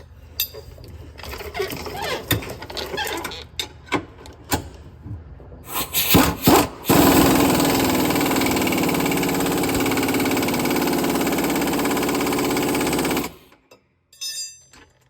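Impact wrench hammering steadily for about six seconds as it tightens down a suspension bolt, then cutting off. Before that come scattered clinks and knocks of the socket going onto the bolt and a few short bursts of the wrench.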